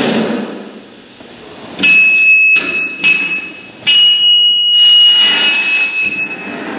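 Live electronic noise music. A rushing noise swells and fades, then a loud, high steady tone over harsh noise cuts in about two seconds in, breaks off and returns a few times, and fades near the end.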